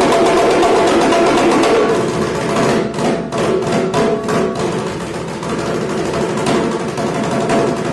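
Mizhavu, the large copper pot drum of Kutiyattam, played with the hands in a fast, dense roll over a steady ringing tone. About three seconds in, the roll breaks into six or so separate strokes, then the playing carries on more loosely.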